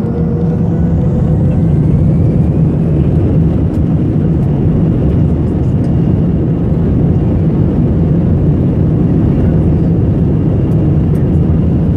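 Jet airliner taxiing, heard from inside the cabin: a steady low rumble of engines and airframe, with a faint engine whine that rises in pitch about a second in as the noise grows a little louder, then holds steady.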